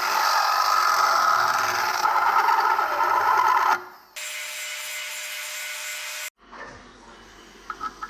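Rasping, rubbing noise of hands-on abrasive work on engine parts, steady and loud, which cuts off suddenly about four seconds in. It gives way to a quieter steady hiss with a faint thin tone for about two seconds, then a low background with a few small clicks.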